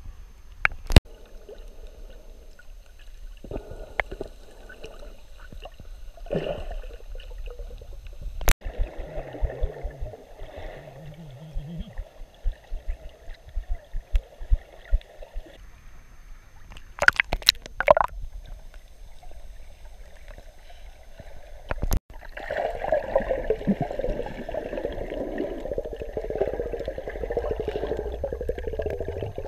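Muffled water sound picked up by a submerged action camera in shallow sea: gurgling and sloshing, with a few sharp knocks spread through it. About two-thirds of the way in it turns to a louder, steady rushing.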